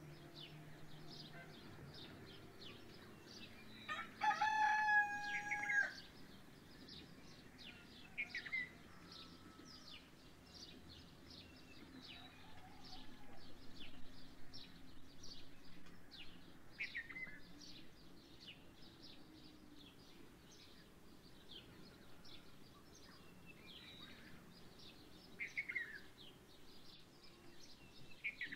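A rooster crows once, about four seconds in, in a call of about two seconds, the loudest sound here. Small birds chirp constantly throughout, with a few short falling calls later on.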